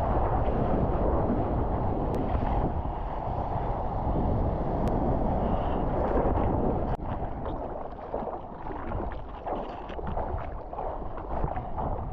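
Wind buffeting the microphone in a steady, uneven rumble; the level drops suddenly about seven seconds in.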